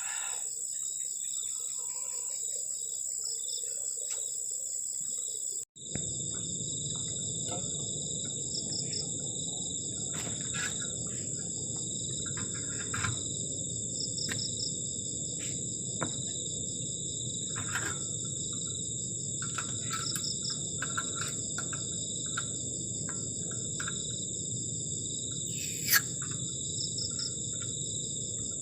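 Steady chorus of crickets trilling at several pitches, dropping out for an instant about six seconds in. Beneath it runs a low, even rush, with scattered short chirps and clicks; the sharpest comes near the end.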